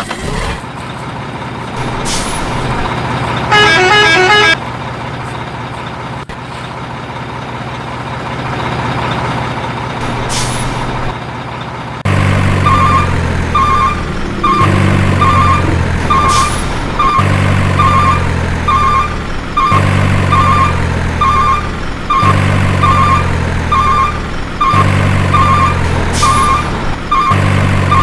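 Truck engine sound running steadily, with a short honking horn about four seconds in. From about twelve seconds in it turns into a repeating cycle, every two and a half seconds or so, of a low engine note with short high beeps.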